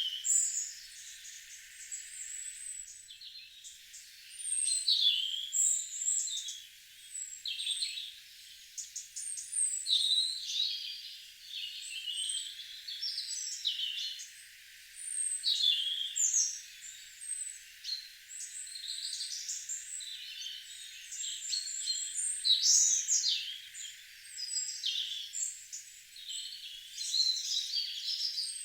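Garden songbirds singing: a run of short, high chirping and trilling phrases, some overlapping, every second or two over a faint steady hiss.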